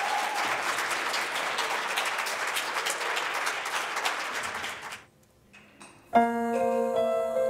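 Audience applauding, which dies away about five seconds in. After a brief hush, a piano begins playing held chords.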